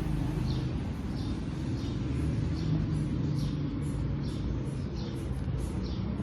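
Steady low mechanical rumble with a faint high chirp repeating about once a second.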